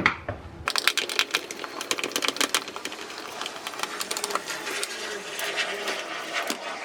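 Screwdriver working recessed screws out of a plastic shop vac motor head: a rapid run of sharp clicks and scraping, busiest in the first couple of seconds.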